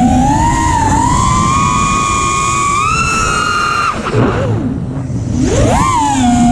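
FPV quadcopter's brushless motors and propellers whining, the pitch rising and falling with the throttle over a rush of air noise. About four seconds in the whine drops away sharply as the throttle is chopped, then climbs steeply back about a second and a half later as it is punched again.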